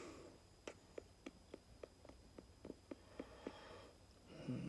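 A run of about a dozen soft clicks, roughly three a second, over near silence, then a voice starting just before the end.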